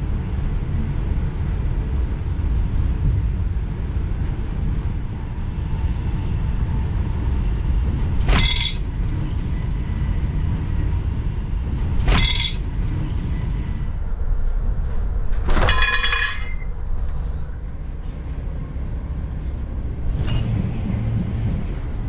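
Steady low rumble of an express train's coach running at speed on the rails, broken by several short, sharp rushes of noise, one of them as another train passes on the adjacent track about twelve seconds in.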